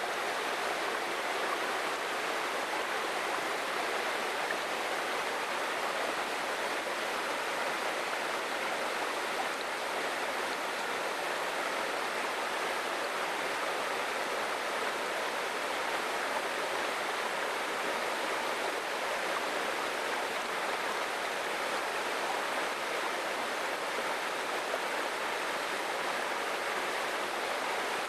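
Forest waterfall: a steady rush of falling water, even and unbroken.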